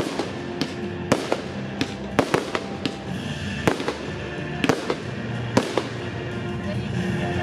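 Fireworks display: aerial shells bursting in a rapid, irregular run of sharp bangs, about one or two a second, over music playing with the show.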